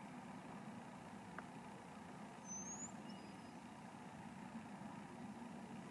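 Quiet outdoor background: a faint steady low rumble, with a brief high chirp about two and a half seconds in.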